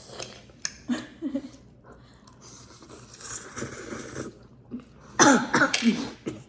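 A person coughing and clearing the throat, with breathy gasps and the loudest coughing fit about five seconds in. The coughing is set off by fiery-hot noodles hitting the back of the throat.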